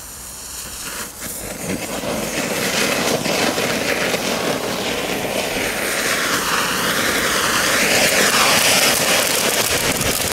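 Category 1 firework fountains hissing as they spray sparks. The hiss starts about a second and a half in and grows steadily louder.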